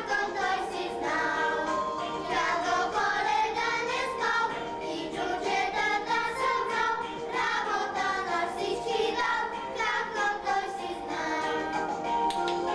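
A group of children singing a song together. Near the end a beat of sharp, evenly spaced taps starts up, about three a second.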